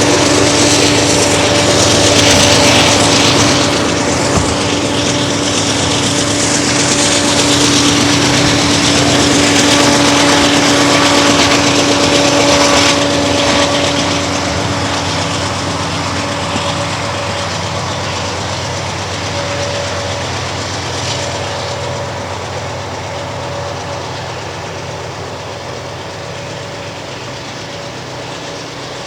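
Diesel-electric freight locomotives running at full throttle (notch 8) hauling a loaded train up a steep grade: a loud, dense engine sound with a steady hum. It fades gradually from about halfway through as the locomotives move away.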